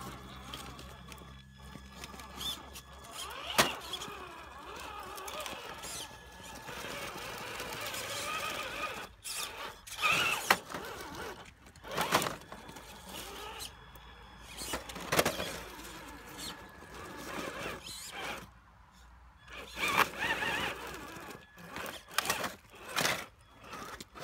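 Traxxas TRX-4 RC rock crawler's electric motor and gears whining on and off, rising and falling in pitch as it climbs over rocks, with sharp knocks and scrapes of its tyres and body against the stone.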